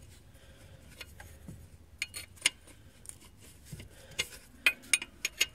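A metal 16 mm wrench clinking and clicking against the alternator's lower mounting bolt and bracket while the bolt is being tightened. Sparse, irregular sharp clinks, most of them in the second half.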